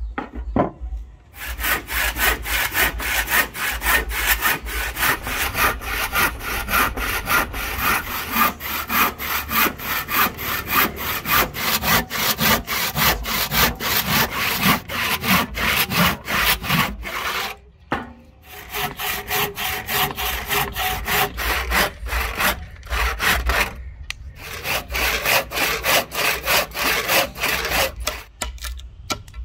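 Handsaw cutting across a palm wood axe-handle blank in rapid back-and-forth strokes, making a series of crosscuts down to the marked outline, with a few short pauses between cuts.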